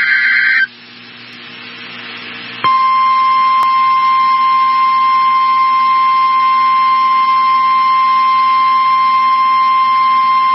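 NOAA Weather Radio alert signal: the end of a SAME digital header burst stops about half a second in, then about two seconds of radio hiss, then the 1050 Hz warning alarm tone starts about two and a half seconds in as one steady, unbroken beep. The tone announces the broadcast of a severe thunderstorm watch.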